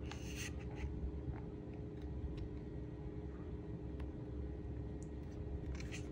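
Faint scraping and a few light clicks of a steel scissor blade working against the metal receiver of a gas blowback airsoft rifle, with a rustle of handling near the end, over a steady low hum.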